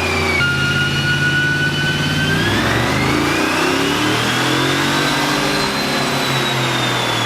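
Truck's 5.7 Hemi V8 with long-tube headers on a chassis dyno under a pull: about half a second in the engine speed drops as it shifts up a gear, then it revs steadily higher through the gear. A high whine rises and falls in pitch with it.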